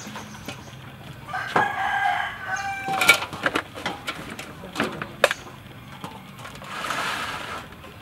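A rooster crows once, about one and a half seconds in, and another fowl call follows near the end. Between them come a few sharp knocks and clatters of the metal tray and aluminium basin as a stingray is handled.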